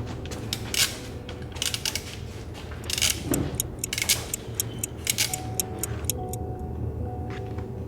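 Irregular sharp clicks and clinks, several a second in scattered groups, over a steady low hum.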